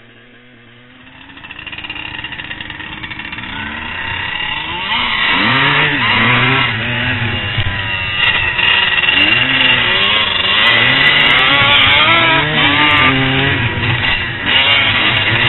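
Dirt bike engines revving, the pitch rising and falling again and again, growing louder over the first few seconds.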